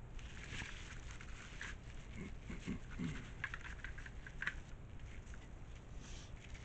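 Clear plastic packaging bag crinkling and rustling as it is handled, in irregular quick crackles.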